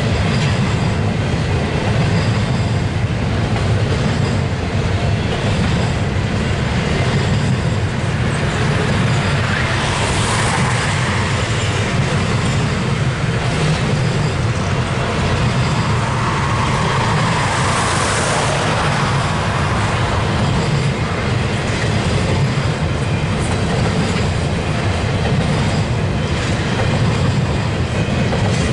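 Double-stack intermodal freight cars rolling past at steady speed: a continuous loud rumble of steel wheels on the rails. The sound brightens briefly twice, about a third and about two thirds of the way through.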